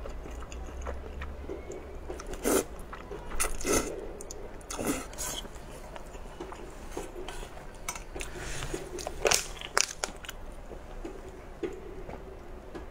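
Close-miked eating sounds: a person slurping and chewing noodles, with wet mouth smacks and now and then a clink of chopsticks against a metal bowl.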